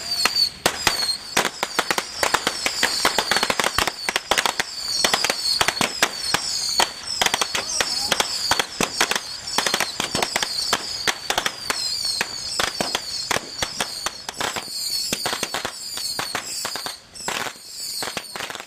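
Firecrackers going off in a rapid, dense string of pops, many a second, mixed with short high falling whistles; the popping thins a little near the end.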